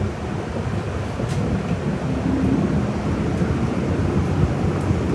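City bus running, heard inside the cabin from the rear seats: a steady low engine and road rumble.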